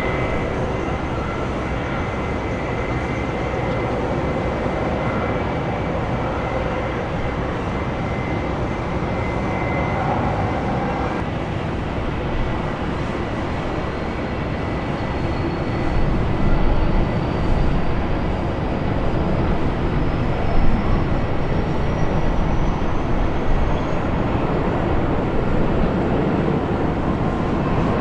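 Jet airliner engines at taxi power, first an Airbus A319's, then a Boeing 737-800's: a steady rushing noise with a high whine. In the second half the sound grows a little louder and a thin whine slowly rises in pitch.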